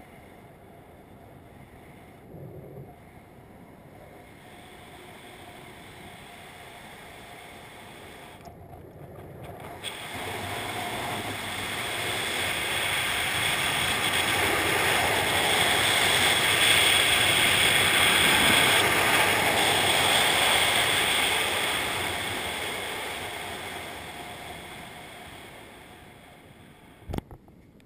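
Wind rushing over a helmet-mounted camera as a skydiver's parachute canopy dives in a swoop. It builds from about ten seconds in with the rising airspeed, peaks, then fades as the canopy levels off and skims the ground. A single sharp knock comes near the end.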